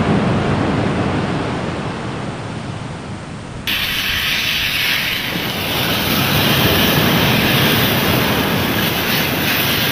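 A steady low rumbling noise, joined suddenly a little over a third of the way in by a loud, steady hiss of food sizzling in a frying pan.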